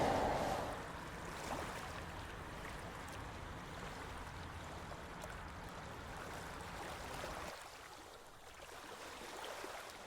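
Faint sea water washing against a rocky shore, an even wash of noise. A low rumble underneath cuts out about seven and a half seconds in.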